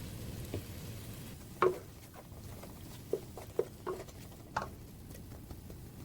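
Food frying in a pan with a steady sizzle, while a utensil knocks against the pan about five times during stirring, the first knock the loudest.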